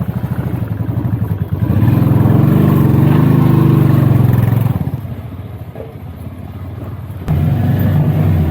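Off-road motorcycle engine revving under load on a climb: it runs hard for about three seconds, eases off, then picks up again sharply near the end.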